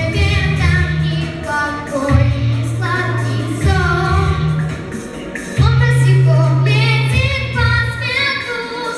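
A young girl singing a solo vocal melody in Russian over an instrumental accompaniment, with sustained low bass notes that change every second or two.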